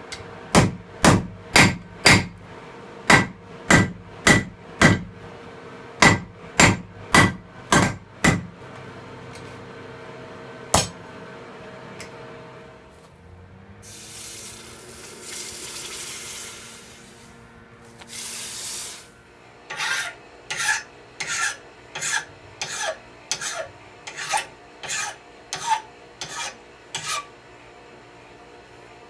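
Hand hammer beating red-hot steel on a railroad-track anvil, about two blows a second for the first eight seconds, with one last blow a little later. The hot steel is then quenched in a bucket of water with a hiss, and near the end the axe head, clamped in a vise, is worked with about ten regular file strokes.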